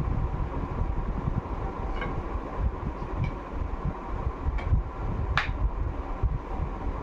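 Steady running of a room fan, its air buffeting the microphone, with a faint steady hum. A few light clicks come from the air rifle's metal action as it is fitted into its wooden stock.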